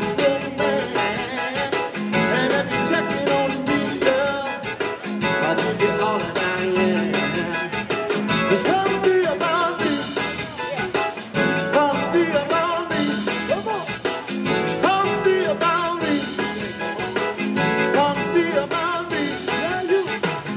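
Live amplified zydeco band playing: accordion, electric guitars, keyboard and drum kit, with a voice singing at times.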